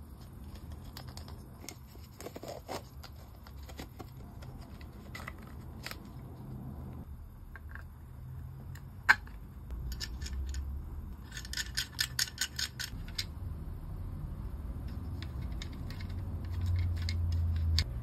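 Small plastic and metal parts handled and fitted into a hollow plastic game-controller shell: scattered light clicks and taps, one sharp click about nine seconds in, and a quick run of clicks around twelve seconds in, over a steady low hum.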